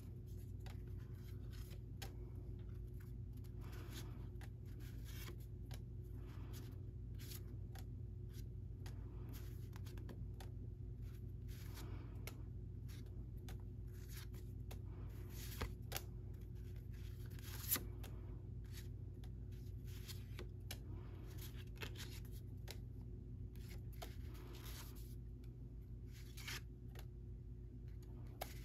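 A stack of thin cardstock journaling cards being flipped through by hand: repeated soft, irregular papery slides and flicks as each card is moved to the back, with a sharper tap or two partway through, over a steady low hum.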